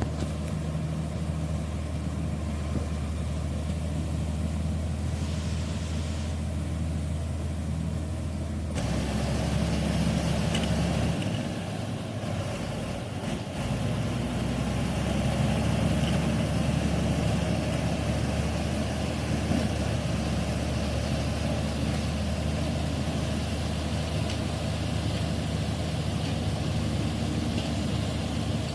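Komatsu D85E-SS bulldozer's diesel engine running steadily while the dozer works dirt. About nine seconds in the sound grows fuller and louder, eases briefly a few seconds later, then comes back strong.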